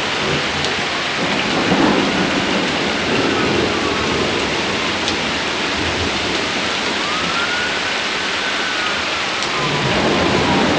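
Heavy rain pouring steadily in a thunderstorm, with low rumbles of thunder swelling about two and three seconds in.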